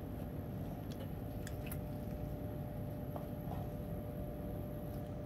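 Faint, soft squishing and scraping as fingers pick the fuzzy choke out of a steamed artichoke half, with a few small clicks, over a steady low background hum.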